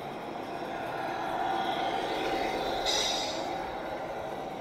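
Radio-controlled Mercedes Actros model tractor unit pulling a container trailer, its drive running steadily and growing a little louder as it passes close. A short hiss sounds about three seconds in.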